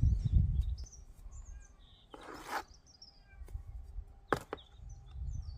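Small birds chirping in short high notes. A brief scrape comes about two seconds in and a sharp knock a couple of seconds later. A low rumble sits under the start and the end.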